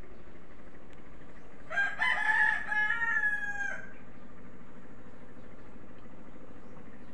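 A rooster crowing once, a single call about two seconds long that starts about two seconds in.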